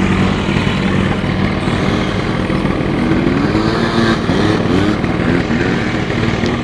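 ATV engine running, its revs rising and falling a few times in the middle.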